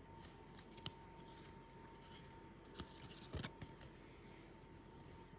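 Hockey cards and their packaging being handled: faint rustling with a few sharp clicks, the loudest in the middle.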